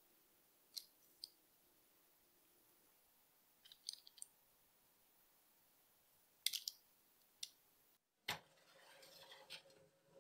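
Short, soft clicks and taps of dough balls set down on parchment paper on a baking tray, a few at a time, in a quiet room. About eight seconds in, a sharper knock followed by a rough scraping rustle as the metal baking tray is slid onto the oven rack.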